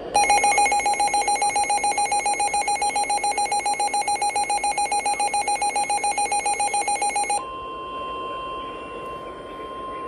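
Weather radio alert: a rapid electronic beeping, about eight beeps a second, for about seven seconds, then a steady single-pitched tone, the NOAA Weather Radio warning alarm tone that signals an incoming warning broadcast.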